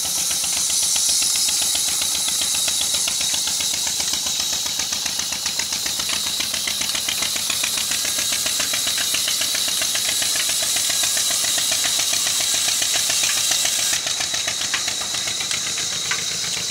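Old Ruston Hornsby stationary diesel engine running steadily with an even rhythmic beat, driving a band saw by a flat belt. The band saw cutting timber adds a high hiss that stops about fourteen seconds in.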